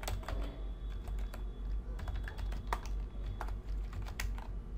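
Typing on a computer keyboard: an irregular run of quick keystrokes over a steady low hum.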